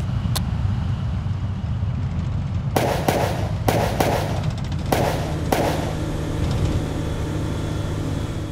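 War sound effects: a steady low engine rumble under a couple of sharp cracks at the start, then a run of about six heavy blasts around the middle.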